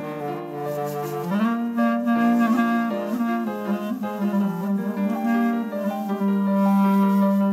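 Music: an instrumental song introduction with a reedy wind-like lead melody holding long notes, sliding up about a second in, over sustained accompaniment.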